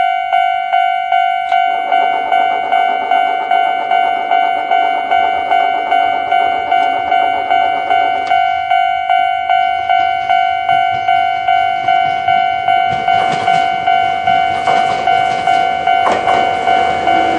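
Railway level-crossing warning bell ringing in an even rhythm of about two strikes a second, with the running noise of a train: a rumble from about two seconds in to about eight seconds, then a train growing louder from about thirteen seconds on.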